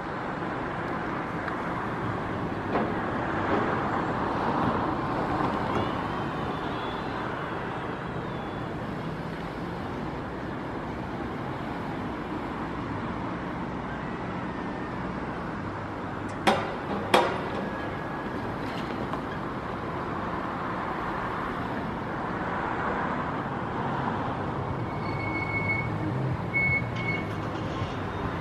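Jet engines of a Boeing 787-8 (GE GEnx-1B turbofans) running, heard from a distance as a steady noisy hum that swells and fades. Two sharp clicks about halfway through are the loudest sounds, and a few short high beeps come near the end.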